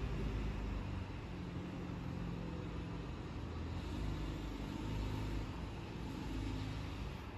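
Street traffic: a steady low rumble of car engines and tyres running by.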